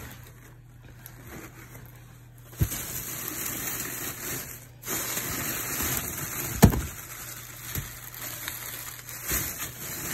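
Crackly rustling of shredded packing grass and cardboard being dug through in a box, starting about a quarter of the way in, with a few sharp knocks, the loudest about two-thirds of the way through.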